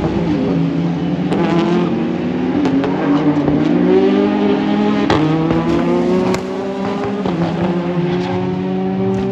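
A race car's engine at full throttle, its pitch climbing through the gears with quick upshifts about a second and a half, two and a half, five and six seconds in, then one long slow rise near the end.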